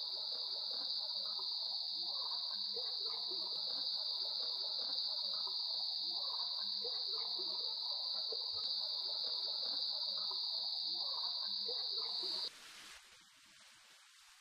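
Steady high-pitched insect drone, like cicadas, with faint scattered short calls beneath it. It cuts off suddenly about twelve seconds in.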